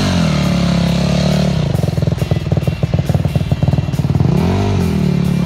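Yamaha dirt bike engine revving up and back down, then running at low revs with a rapid, choppy beat, and revving up and down once more near the end.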